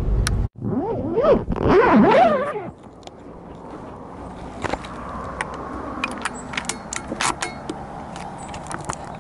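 A loud squealing sound that rises and falls in pitch for about two seconds near the start, then handling noise from a rifle-mounted camera: fabric rubbing and many small clicks and scrapes as the air rifle is carried.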